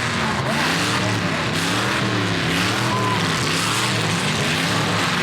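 Several demolition derby cars' engines revving up and down together, their pitches rising and falling over one another.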